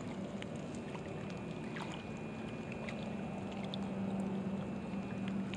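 Small waves lapping against the bank, with wind on the microphone and a faint low steady hum underneath.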